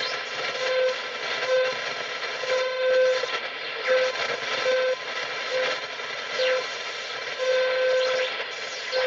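Shortwave receiver audio from a Yaesu VR5000: steady static hiss with a tone keyed on and off in short and long beeps, and a faint whistle gliding quickly down in pitch several times as the weird sweeping signal passes through the tuned frequency from high to low.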